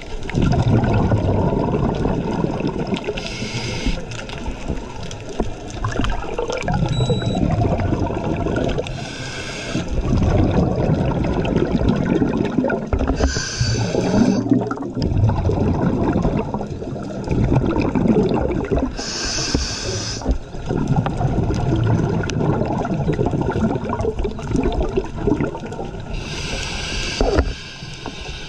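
Scuba regulator breathing heard underwater: a hiss on each inhale, five times a few seconds apart, with the rumbling gurgle of exhaled bubbles in between.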